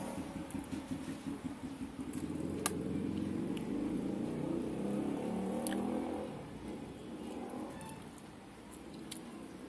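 A low, engine-like rumble that fades after about six seconds. Over it come a few sharp clicks from chewing and lip smacks.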